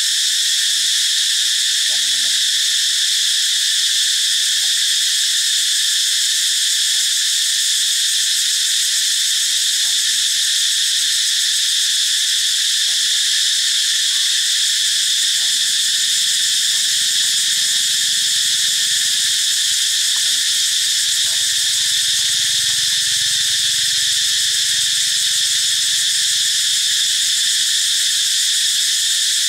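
Loud, steady, high-pitched buzzing chorus of forest insects.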